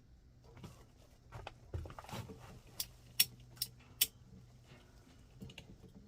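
Rustling and handling noises, then four sharp clicks in quick succession, over a faint steady low hum.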